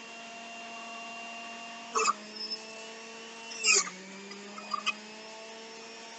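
Electric juicer motor running with a steady hum, with a few knocks as carrots are fed into it. About four seconds in, after one knock, the motor's pitch drops slightly as it takes the load of a carrot.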